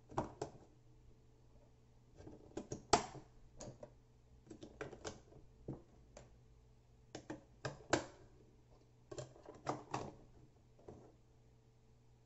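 AA batteries being clicked into a plastic trail camera's battery compartment and its cover pressed shut: an irregular string of sharp plastic clicks and knocks, loudest about three and eight seconds in.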